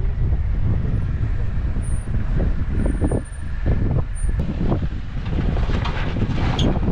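Off-road vehicle's engine running low as it crawls over rock, with irregular knocks and bumps from the vehicle on the rock and wind buffeting the microphone.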